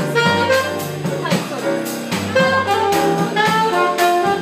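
Live jazz band: a saxophone plays a solo melody over piano, bass and a drum kit keeping time on the cymbals.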